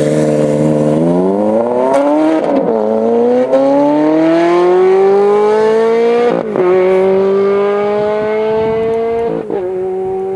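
Ferrari F430's V8 accelerating through the gears on a custom stainless-steel dual-mode exhaust: the engine note climbs steadily and drops sharply at three upshifts, about two and a half, six and a half and nine and a half seconds in.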